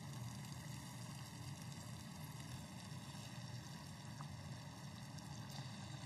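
Steady, quiet sizzle of cherry tomatoes, hot pepper and garlic frying in oil in a frying pan while canned tuna is tipped in and stirred, with a couple of faint clicks near the end.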